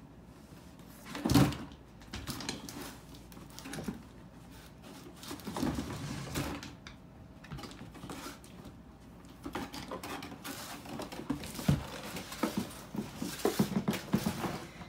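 Cardboard box knocking and scraping on a hardwood floor as a dog noses into it and shoves it around, searching for a treat inside. A single loud thump comes about a second and a half in, and the knocks and scrapes come thicker near the end.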